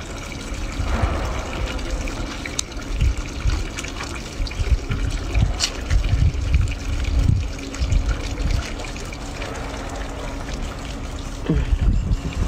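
Water trickling and splashing into a basin while a baby monkey's soapy hands and feet are scrubbed and rinsed, with irregular low bumps of handling.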